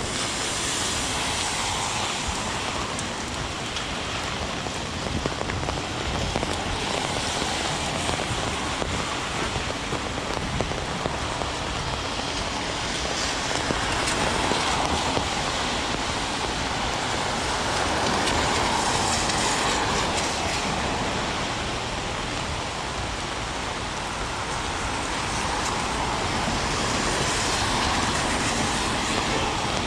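Heavy rain pouring steadily, a dense even hiss that swells and eases every few seconds.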